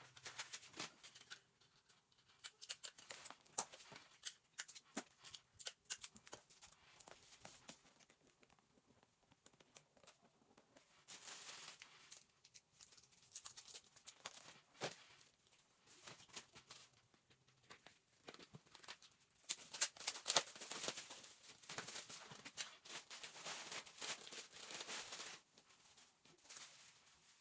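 Rustling and crinkling of packaging and clothes being handled, with many small clicks and snips. The rustling comes in louder stretches about eleven seconds in and again about twenty seconds in.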